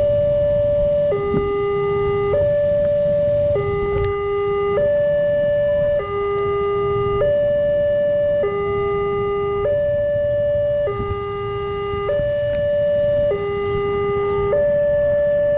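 Railway level-crossing warning alarm sounding a steady two-tone hi-lo signal, switching between a higher and a lower tone about every 1.2 seconds: the crossing is closed for an approaching train.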